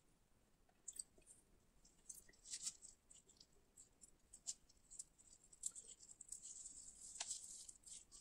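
Faint, soft crackling and clicking as fingers in disposable gloves squeeze and turn a lump of chewed coated peanuts, with a denser patch of crackle about seven seconds in.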